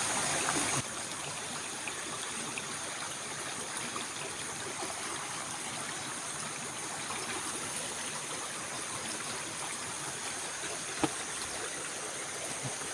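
Steady rush of flowing stream water, a little quieter after the first second, with one sharp click about eleven seconds in.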